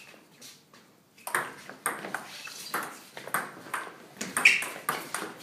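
Table tennis rally: the ball clicks sharply off the rubber-faced bats and bounces on the table in a quick, even back-and-forth, about two hits a second, starting about a second in after a quiet serve.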